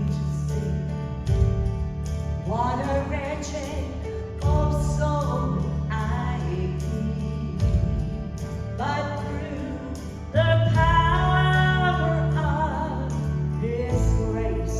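A female vocal trio singing a gospel song, with instrumental backing carrying steady bass notes that change every few seconds.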